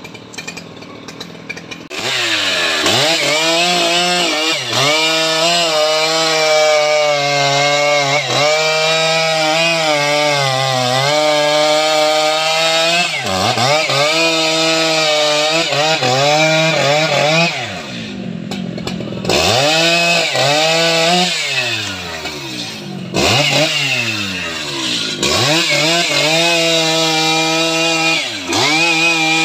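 Stihl MS 881 two-stroke chainsaw cutting through a teak log. It runs quieter for about two seconds, then goes to full throttle, its engine pitch dipping again and again as the chain loads up in the cut and recovering. It eases off about two-thirds of the way through, with several falling revs, before running full again.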